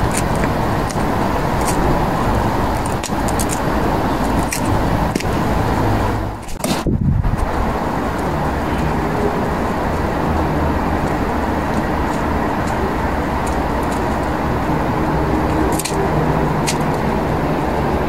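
Steady low rumble of road traffic, with faint sharp clicks here and there.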